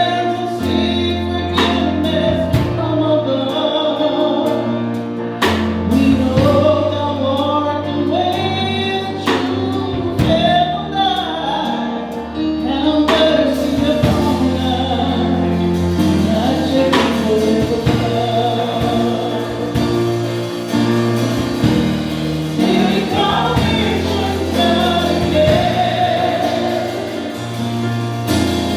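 A choir of men and women singing a gospel hymn over instrumental accompaniment, with sustained bass notes and occasional drum hits.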